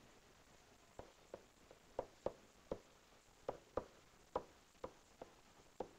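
Faint, irregular taps and clicks of a pen on a SMART Board interactive whiteboard as letters are handwritten, about a dozen short knocks.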